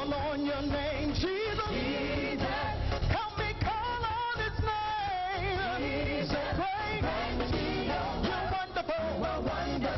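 Live gospel praise-and-worship music: a voice singing a wavering melody over a band with a steady beat.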